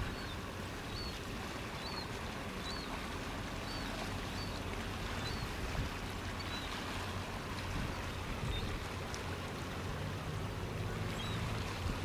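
Seawater running and washing through a channel between shore rocks, a steady rushing. Faint, short, high chirps repeat about every half second to a second through much of it.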